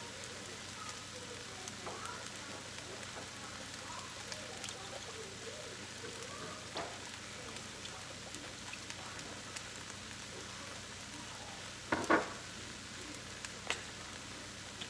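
Rice, peas and carrots frying in a hot wok: a steady sizzle with scattered small crackles. A short knock comes about twelve seconds in, and a smaller click just after.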